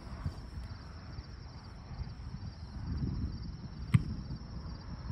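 Wind buffeting the microphone in a low, steady rumble, with one sharp slap of a volleyball being struck by hand about four seconds in.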